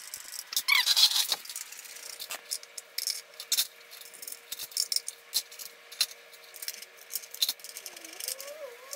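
Small metallic clicks and rattles of a T-handle hex key and bolts being worked while fastening a motorcycle's front fender, irregular and scattered, with a louder burst of handling noise about a second in.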